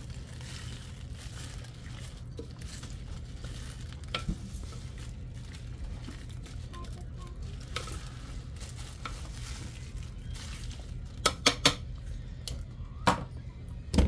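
Diced potatoes and vegetables being stirred in a plastic-lined slow cooker with a utensil: soft scraping and shuffling with small clicks, over a steady low hum. Near the end come a few sharp, loud knocks of the utensil against the pot.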